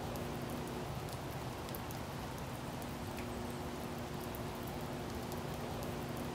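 Steady hissing ambience with a faint low hum and scattered light ticks.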